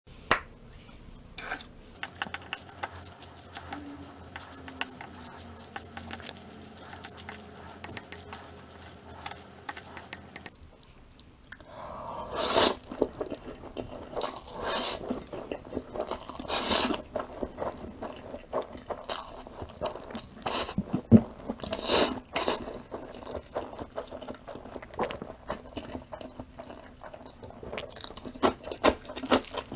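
Close-miked eating of instant spaghetti noodles. Light clicks of a utensil against the dish come first; from about eleven seconds in there are repeated loud noodle slurps, with chewing between them.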